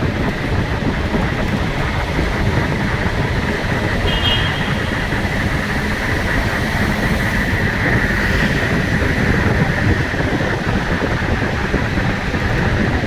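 Steady rumble and road noise of a moving vehicle, heard from on board, with a brief faint high tone about four seconds in.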